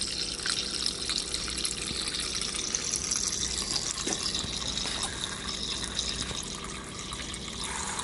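Water coolant running out of a flexible segmented coolant hose nozzle and splashing onto the steel table of a mini milling machine, a steady watery hiss as the flow is regulated with the valve. The sound of the stream changes a little before the end as the flow is opened up.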